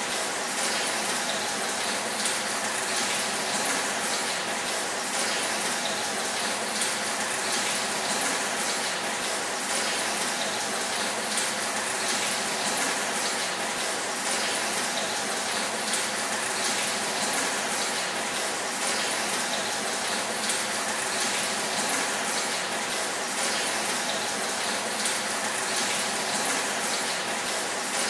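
Pumped water falling from pipes onto a roof of corrugated metal sheets, a steady dense patter like heavy rain on a tin roof.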